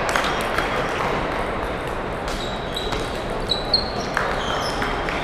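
Table tennis balls clicking off paddles and tables, irregular sharp clicks from the rally and from many other tables, over the steady murmur of a large hall. A few short high-pitched chirps sound in between.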